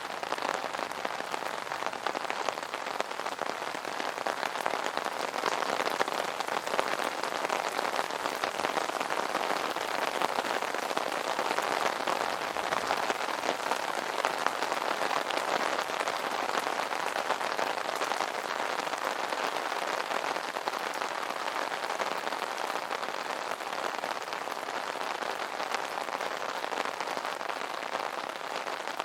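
Steady rain drumming on an umbrella canopy: a dense patter of drop impacts.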